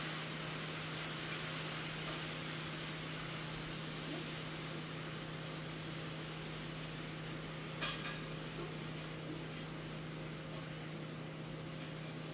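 A steady low electrical hum over an even hiss, with one short click about eight seconds in.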